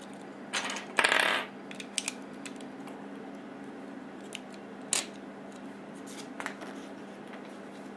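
Plastic Lego pieces clicking and clattering in the hands as bricks are handled and pressed together: a short rattle about a second in, then single sharp clicks, the loudest about five seconds in. A steady low hum runs underneath.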